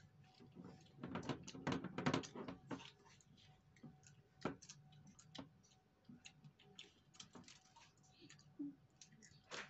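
Irregular light clicking and rattling of small hard pieces being stirred and picked at in plastic shell-shaped bowls and dropped onto a plastic tabletop, thickest between about one and three seconds in.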